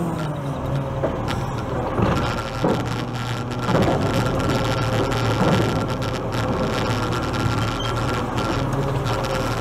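Side-loading garbage truck's engine running while its hydraulic side arm extends to grab a wheelie bin. A steady whine starts about two seconds in, along with a few knocks from the arm.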